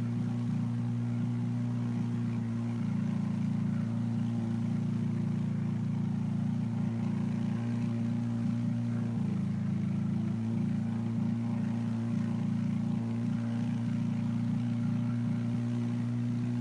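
Engine of the towing boat running steadily at constant cruising speed, a low even drone that holds the same pitch throughout.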